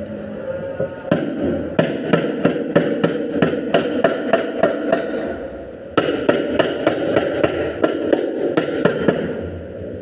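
Nails being driven into wood: rapid sharp strikes, about three a second, in two runs with a short break about halfway.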